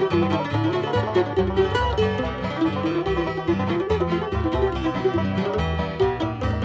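Bluegrass band playing an instrumental passage: fast banjo picking over guitar and bass, with a wavering lead melody line.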